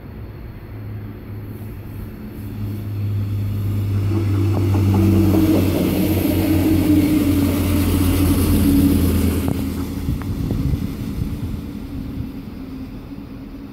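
Alstom Coradia LINT diesel multiple unit passing close by, its engine drone swelling to a peak in the middle and then fading as it moves away. A few sharp clacks from the wheels on the track come as the loudest part passes.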